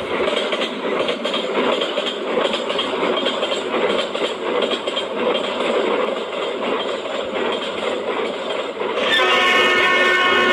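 A train running, an even rattling rush, then a horn sounding a steady held chord from about nine seconds in.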